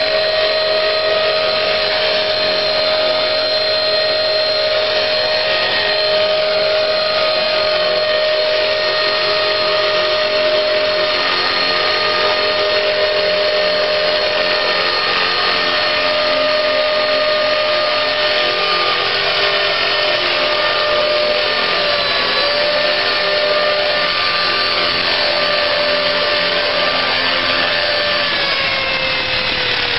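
Electric RC scale Bell UH-1 Huey helicopter hovering, a steady high whine of its electric motor and drive gears over the rotor's rush. The pitch dips briefly a little past twenty seconds, then falls near the end as the rotor slows.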